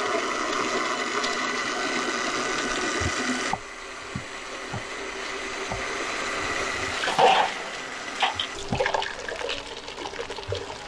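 Electric countertop blender running, churning phalsa berries with water, a steady motor sound with a watery churn that cuts off suddenly about three and a half seconds in. Lighter handling knocks and a rustle follow.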